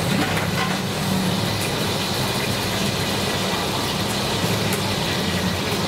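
Steady low mechanical hum, like an engine or motor running, under a constant wash of background noise.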